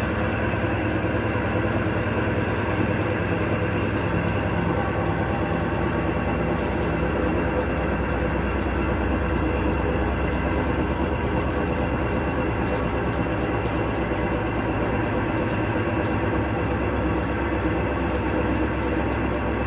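Electrolux LTC12 12 kg washing machine running with a steady, continuous rumble: its bearings are roaring loudly, the sign of worn bearings.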